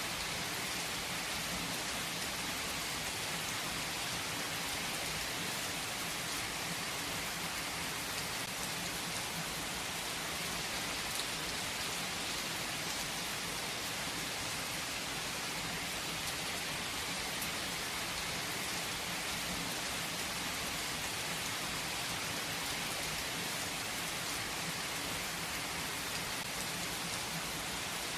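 Steady rain falling on a surface, with fine drops pattering.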